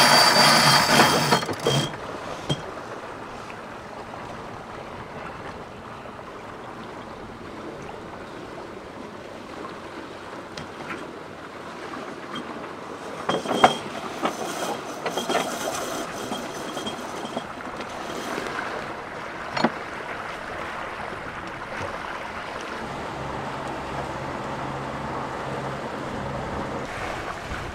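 Wind and water rushing aboard a sailboat under sail, with wind on the microphone. It is louder for the first two seconds as the boat gybes, then steady, with a few sharp knocks in the middle and a faint low hum near the end.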